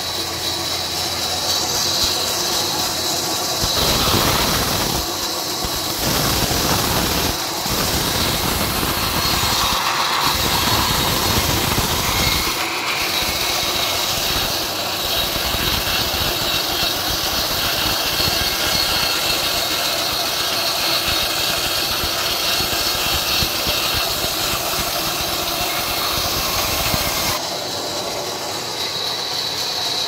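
Sawmill band saw running with a steady high whine. About four seconds in, its blade starts cutting lengthwise through a log and a loud, coarse sawing noise is added. The sawing stops a few seconds before the end, when the cut is through.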